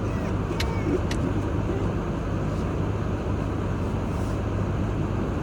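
Steady car engine and road noise heard inside the cabin while driving, with two short clicks about half a second and one second in.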